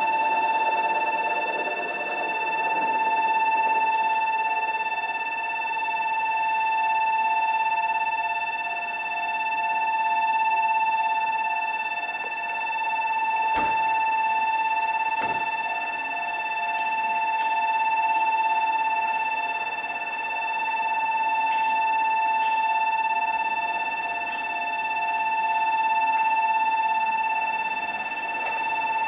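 Railway level-crossing alarm ringing without a break: an electronic crossing bell giving a steady, pulsing ding tone whose loudness swells and fades slowly about every two and a half seconds, the sign that the crossing is closed for an approaching train.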